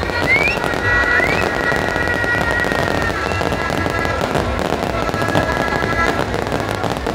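Fireworks crackling and popping in a dense, steady stream, with a few short rising whistles about a second in.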